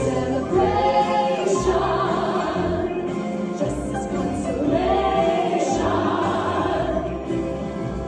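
A musical-theatre ballad: sustained singing with a choir behind it over instrumental accompaniment.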